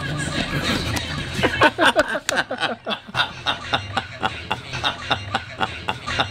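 Men laughing and chuckling, breaking into quick repeated laughing pulses from about halfway through.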